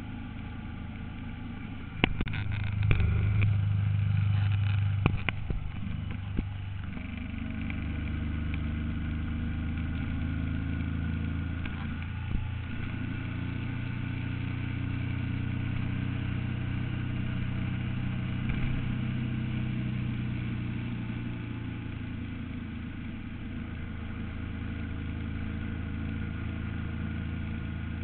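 Can-Am Spyder three-wheel roadster's engine running steadily at road speed, heard from on board. There is a louder stretch of knocks and low rumble from about two to six seconds in.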